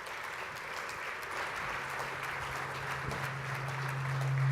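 Audience applauding. A steady low hum comes in about halfway through and swells near the end.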